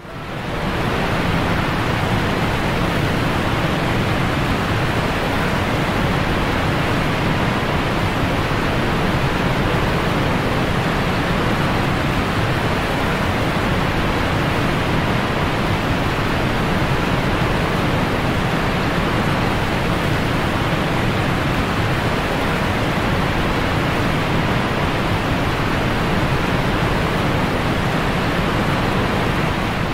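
Rushing white water of river rapids below a dam: a steady, even rush of water that fades in at the start.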